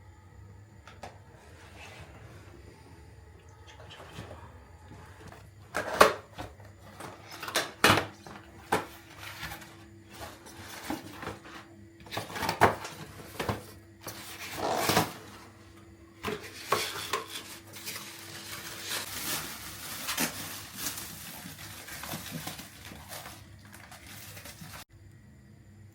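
Unpacking a Nespresso coffee machine: irregular knocks, clicks and clatter as parts and packaging are handled, then a stretch of denser rustling near the end.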